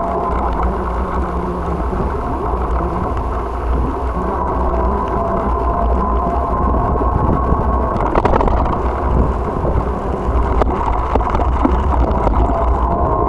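Bicycle riding along a paved path: a steady low rumble of wind and road noise on the bike-mounted camera's microphone, with a few sharp knocks from bumps around eight and ten and a half seconds in.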